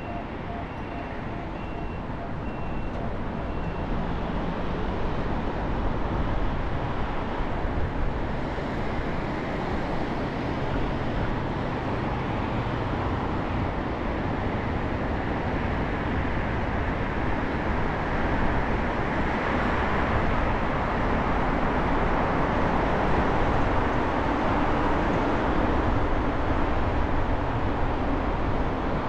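Car driving on city roads: a steady rush of road and engine noise that grows louder over the first several seconds, with a brief regular beeping that stops about four seconds in.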